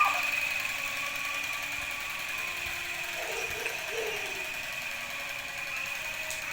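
Small electric motor of a battery-powered toy water pistol buzzing steadily with a high whine.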